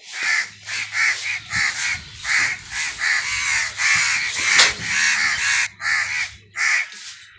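Crows cawing repeatedly: harsh, rasping caws in quick succession, about three a second, some running together.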